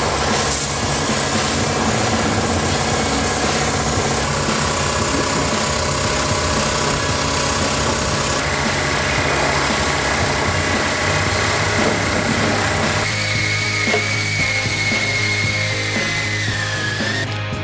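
Background music over power-tool noise. Near the end a wire brush on a power tool scours the engine's cylinder block, with a high steady whine that drops just before the end.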